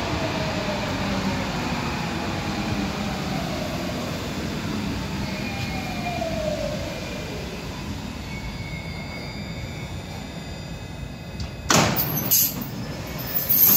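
MP14 rubber-tyred Paris Métro line 14 train pulling in and braking to a stop, its electric traction motors giving a falling whine that fades out about halfway through. Near the end come two short loud noises as the train halts and the train and platform screen doors begin to slide open.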